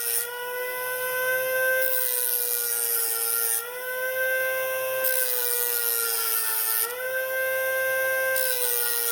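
High-speed rotary tool with a grinding wheel running at a steady high whine while shaving plastic off a car door handle, its pitch dipping briefly three times as it is pressed into the plastic.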